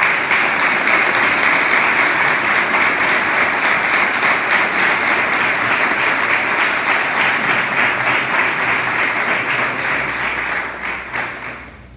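Audience applauding: a long, steady round of clapping that thins out near the end.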